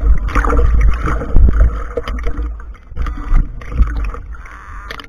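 Seawater sloshing and splashing around a half-submerged camera bobbing at the surface, with a deep, uneven buffeting and irregular splashes and knocks as waves wash over the housing.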